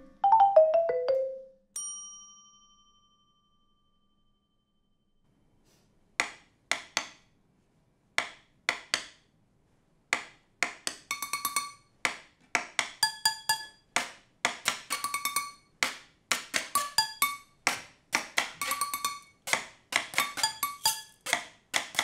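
A few notes falling in pitch, then a desk bell rings once. After a short pause, metal pots, kettles and glass jars are struck with sticks: a few scattered clinks at first, then from about ten seconds in a steady, busy rhythm of ringing clinks.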